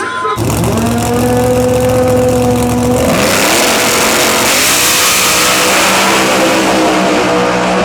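Pro Mod Chevelle drag car's engine running at high revs, starting suddenly and holding a steady pitch, then about three seconds in the sound turns louder and much noisier as it goes to full throttle.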